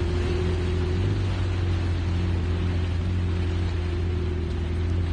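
Tour boat's engine running steadily under way: a constant low drone with an even hiss over it.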